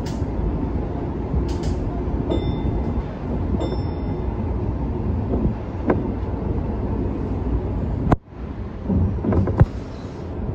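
Electric commuter train pulling out of a station and rolling across pointwork, heard from inside the front car: a steady running rumble of wheels and traction equipment with a few sharp wheel clicks over rail joints and switches. The sound drops out briefly just after eight seconds in.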